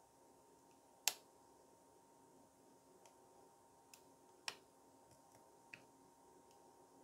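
Faint metallic clicks of a hook pick working the pin stack of a Lockwood 530 kik cylinder: a sharp click about a second in, another at about four and a half seconds, and a few smaller ticks between and after.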